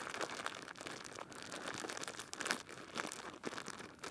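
Plastic zip-top bag crinkling as hands knead bannock dough of flour and water inside it: irregular crackles, a few of them louder.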